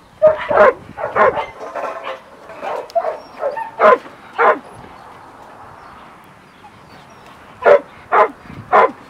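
Puppy barking and yelping in short, sharp bursts as it balks at the leash: a quick flurry over the first four and a half seconds, a pause, then three more barks near the end.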